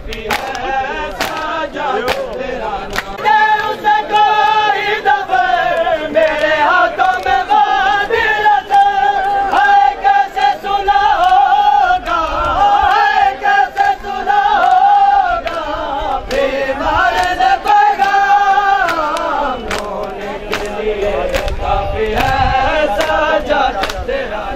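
Shia mourners performing matam: a steady beat of sharp slaps from hands striking bare chests, under a noha lament chanted by men's voices, with a crowd around.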